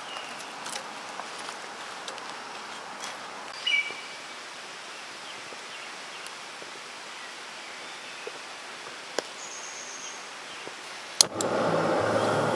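Steady hiss of flowing stream water, with a few faint clicks and two brief high chirps. A sharp click comes near the end, and background music starts right after it.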